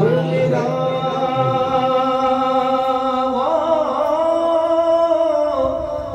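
A man singing an Urdu devotional song unaccompanied into a handheld microphone, drawing out long held notes; the melody steps up in pitch about halfway through and falls away near the end.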